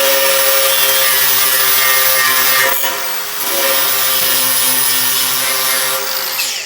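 Electric angle grinder running at full speed, grinding on metal, with a steady hiss and whine. The sound eases briefly about three seconds in, then the grinder is switched off near the end and winds down.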